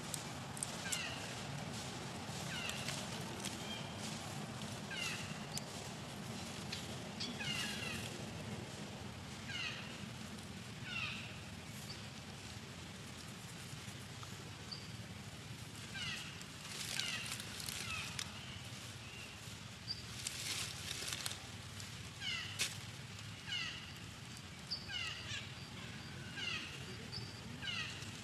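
A baby long-tailed macaque giving short, high calls that fall in pitch, about one a second in runs, with a pause of a few seconds near the middle. A few brief rustles in dry leaves.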